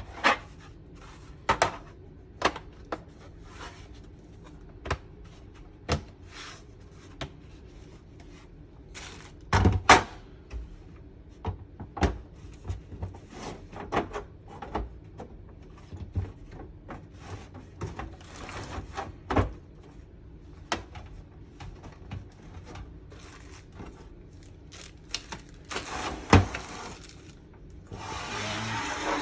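Plastic diorama wall and window pieces being handled and pressed together: scattered clicks and knocks, with heavier knocks about ten seconds in and again near the end, then a brief rustle.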